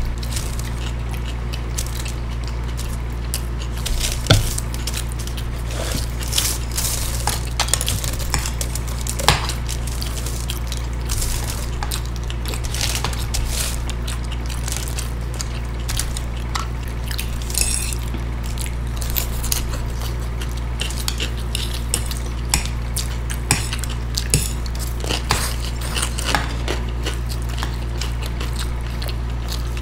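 Forks clicking and scraping against plates while noodles are eaten, many short irregular clinks, with chewing and slurping between them. A steady low hum runs underneath.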